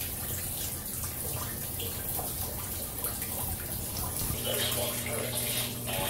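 Water swirling and splashing in the glass cylinder of a homemade vortex fountain, a steady rushing sound with a low hum underneath; a second, higher hum joins about four seconds in.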